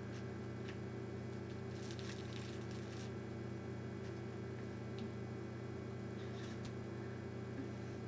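Steady low hum of room tone and recording noise, with a few faint clicks and soft handling sounds scattered through it, a small cluster of them about two to three seconds in.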